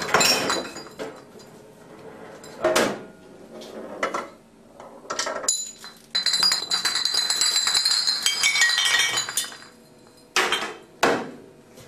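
Glass beer bottles toppling one after another in a domino chain, knocking and clinking against each other with a ringing glassy sound. Single sharp knocks come a few seconds apart, with a dense run of clinking about halfway through.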